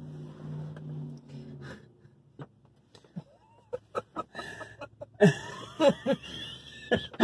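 Two men laughing, in scattered bursts that start quietly about three to four seconds in and grow into loud, wheezing laughter near the end. A low steady hum comes first, for about two seconds.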